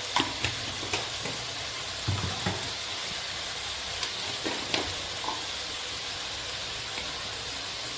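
Onion-tomato masala sizzling steadily in hot oil, with a few short clicks and scrapes of a spoon stirring the pan, bunched about two seconds in and again near five seconds.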